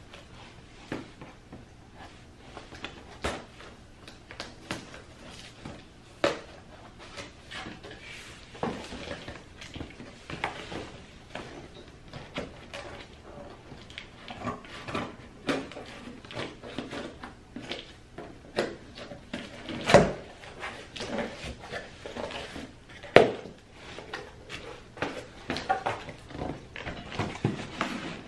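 A cardboard shipping box being handled and cut open with scissors: scattered knocks, scrapes and rustles of cardboard and plastic packing, with two louder knocks near the end.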